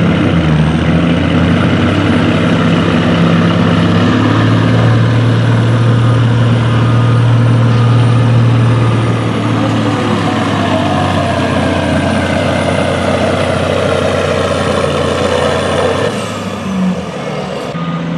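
Semi truck's diesel engine working hard under full load as it drags a pulling sled, a loud steady deep drone with a high turbo whistle above it. About two seconds before the end the whistle stops and the engine sound changes abruptly.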